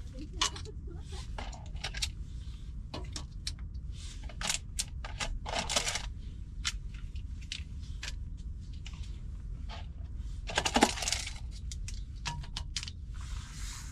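Sachets and the plastic tray of a self-heating hot pot kit being handled: crinkling foil and plastic packets and light clicks and taps as they are taken out and set on a wooden table, with two longer crinkles about 6 and 11 seconds in.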